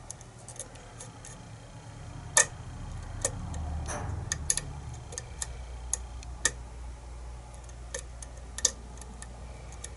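Irregular small metallic clicks of a lock pick and tension wrench working the pin stack of a kick-cylinder challenge lock, with a few sharper ticks about two and a half, six and a half and almost nine seconds in. These are pins setting under the pick, which the picker takes for oversetting.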